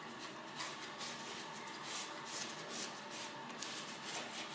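Repeated, uneven wiping strokes as the edge areas around a car windshield are cleaned in preparation for primer and windshield glue.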